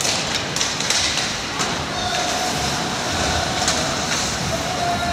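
Ice hockey play on the rink: skates scraping and carving the ice in a steady hiss, with scattered sharp knocks of sticks and puck. A steady tone joins from about two seconds in.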